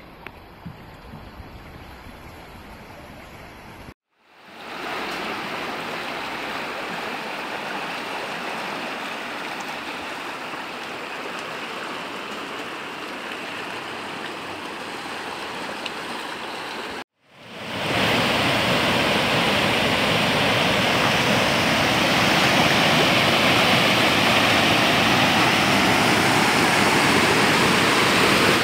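Torrential rain and rushing floodwater, a steady dense rush of water. It is fainter with a few small knocks for the first four seconds, cuts to a steady rush, and about 17 seconds in cuts to a louder, fuller downpour.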